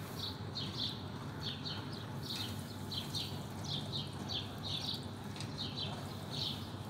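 Canary chicks peeping: short, high, falling chirps repeating two or three times a second, over a steady low hum.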